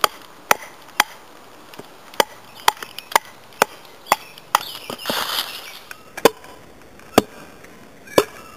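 Wooden baton striking the spine of a GM Patriot bushcraft knife, driving the blade down to split a thick hazel stick: about a dozen sharp knocks, roughly two a second at first, then further apart, with a short scratchy stretch about five seconds in.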